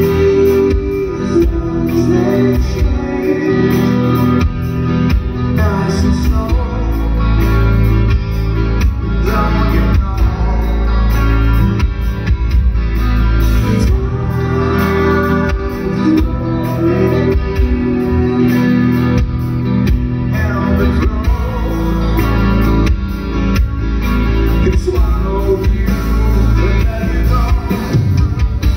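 Live rock band playing loudly: a male lead vocal singing over electric guitar, bass guitar and drums.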